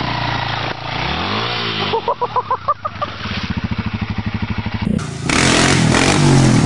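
Dirt bike engine revving up and down, then chugging unevenly in quick pulses. After an abrupt cut near the five-second mark, a second dirt bike's engine runs loudly at high revs as it wheelies.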